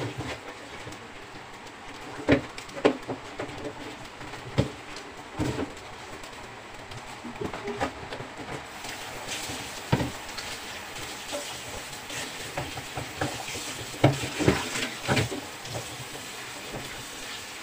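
A plucked chicken being scrubbed with salt by hand in a plastic basin in a stainless-steel sink: wet rubbing, with a dozen scattered knocks against the basin and sink. Tap water runs onto the chicken near the end.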